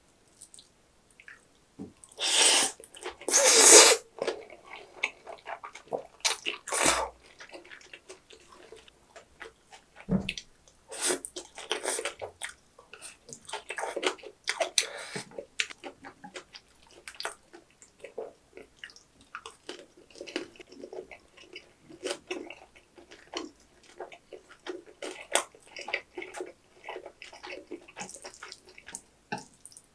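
Close-miked eating of jajang ramen noodles: loud slurps of noodles, the biggest a couple of seconds in and a few more later, between stretches of wet chewing with many small clicks.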